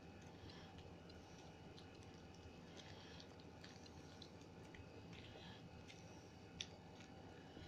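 Near silence: low room tone with faint scattered clicks, and one sharper click near the end.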